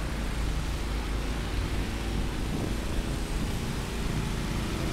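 City street traffic: vehicles running and passing, giving a steady low rumble under an even hiss.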